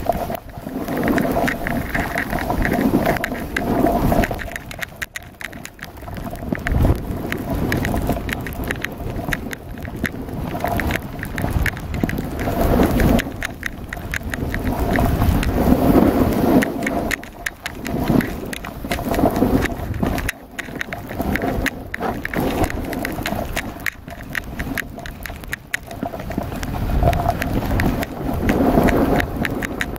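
Wind buffeting the microphone with a low rumble over the hiss and scrape of skis sliding fast down a snow slope, swelling and easing in waves.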